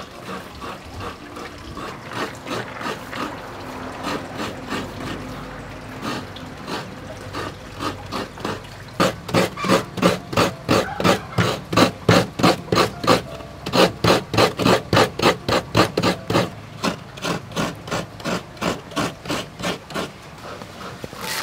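A coconut half being scraped by hand over a coconut grater. The sound is soft and irregular at first. About nine seconds in it turns into a steady rasping rhythm of two to three strokes a second.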